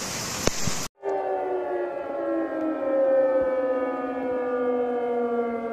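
A steady rushing noise of rain and floodwater cuts off about a second in. Then a siren sounds one long tone that slowly falls in pitch.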